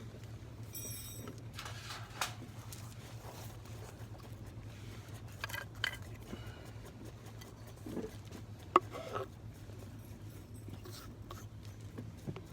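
Camp gear being handled: scattered small knocks and clicks, a brief metallic ring about a second in, and one sharp click a little under nine seconds in.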